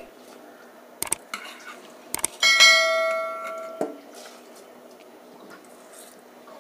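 A couple of light knocks, then about two and a half seconds in a metal utensil clangs against the pressure cooker and rings out like a bell, fading over about a second and a half. Faint bubbling of boiling water in the cooker runs underneath.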